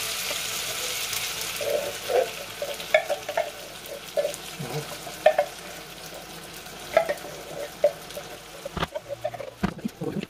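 Pork frying in a pan, sizzling, as thick canned coconut milk is poured onto it; the sizzle is strongest at first and dies down within the first couple of seconds. A wooden spoon knocks and scrapes against the can and pan now and then, with several sharp knocks near the end.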